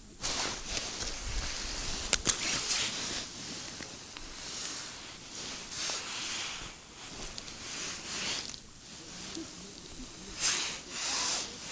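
Rustling and rubbing of jacket fabric right against the camera microphone, a hiss that swells and fades about once a second, with a couple of sharp clicks about two seconds in.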